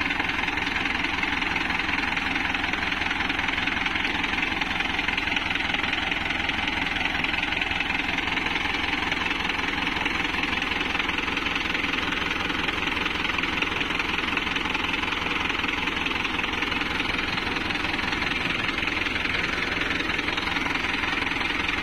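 Mahindra 605 DI-i Arjun Novo tractor's four-cylinder diesel engine running steadily with the bonnet open, its radiator freshly cleared of packed straw that had been making it overheat.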